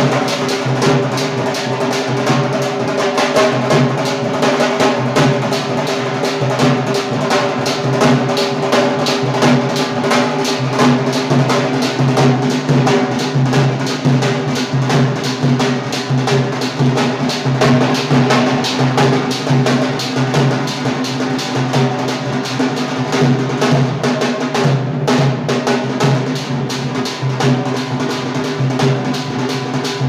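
Two large double-headed drums beaten with sticks, played live in a fast, continuous dance beat.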